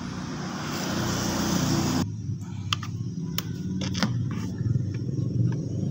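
A steady low rumble with a hiss over the first two seconds that cuts off suddenly, then a few sharp clicks.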